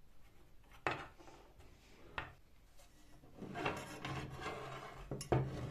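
Metal parts of an old bike pump being handled and set down on a wooden tabletop: a sharp knock about a second in, a lighter one around two seconds, then a stretch of rubbing and scraping of metal on wood, ending in another knock near the end.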